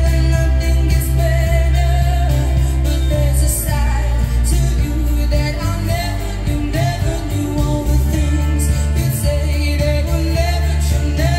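Pop song with a singer over a strong, steady bass line, played back through a Yamaha M-85 stereo power amplifier and its speakers as a working test.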